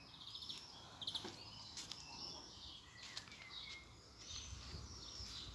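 Birds chirping and singing faintly, a short phrase every second or so, with a low rumble near the end.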